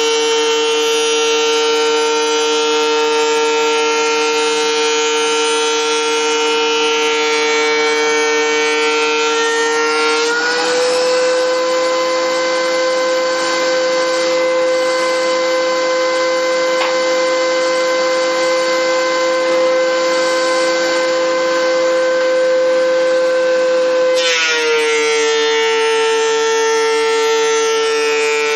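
DeWalt benchtop thickness planer running with a loud, steady whine while planing red oak boards. Its pitch rises slightly about ten seconds in, as the cutterhead runs free once a board has passed through. It drops again near the end as the next board feeds in and loads the motor.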